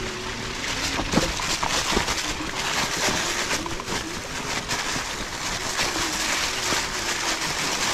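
Fat tyres of an electric bike rolling over dry fallen leaves and dirt: a steady crunching rustle with occasional knocks from rocks and bumps.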